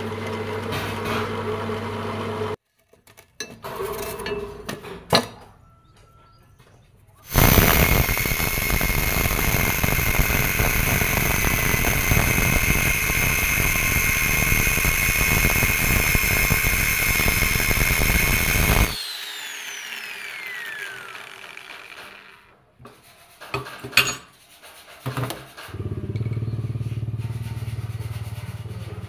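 Angle grinder with a cutting disc cutting through steel plate, a loud steady grinding with a high whine for about twelve seconds. When it is switched off the whine falls as the disc spins down. At the start a drill press with a hole saw runs with a steady hum.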